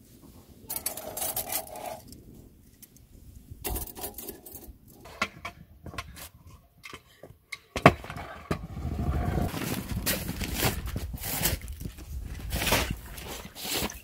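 Metal clinking and scraping in the first couple of seconds. From about halfway, a kick scooter's small hard wheels roll over brick paving in a steady rattling rumble, with sharp clicks as they cross the joints.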